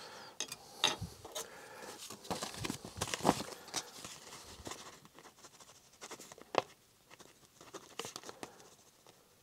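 A sheet of paper rustling and crinkling as it is handled, with scattered light clicks and taps, including a micrometer set down on the cylinder barrel. Busier in the first few seconds, then only a few sparse clicks.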